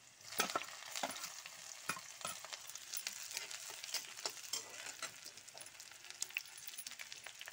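Garlic, cumin and freshly added ginger sizzling and crackling in hot oil in a metal kadhai, with a louder rush of sizzling about half a second in as the ginger hits the oil. A steel spatula scrapes and taps against the pan as it stirs.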